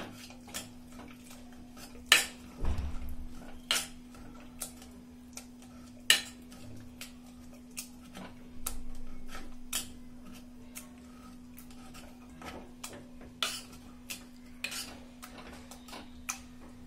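Masher knocking and scraping against the inside of a pressure cooker while boiled potatoes, cauliflower and peas are mashed: irregular knocks and clicks, roughly one a second, with a steady low hum underneath.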